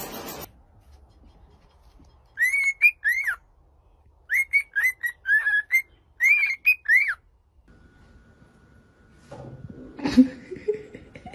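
Cockatiel whistling a tune in three short phrases of quick notes, each note sliding up and then down. A single sharp thump comes near the end.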